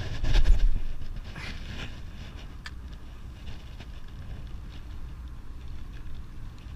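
A cast with a spinning rod: a loud rush of wind on the microphone as the rod swings out, then a single sharp click a little under three seconds in, over a steady low wind rumble.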